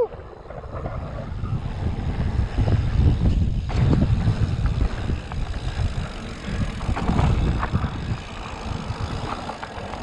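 Mountain bike rolling fast down a dirt singletrack: tyre rumble on the dirt with wind on the microphone and scattered knocks and rattles from the bike over bumps.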